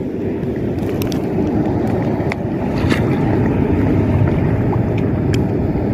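Steady rushing noise of wind on the microphone and the sea around it, with a few faint clicks.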